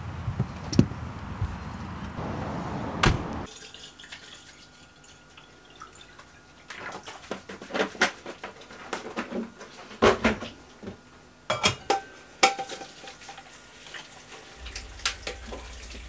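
Washing up at a kitchen sink: dishes and glassware clinking and knocking, with a dense run of sharp clinks and knocks in the middle, and faint tap water. A steady rushing noise cuts off about three seconds in.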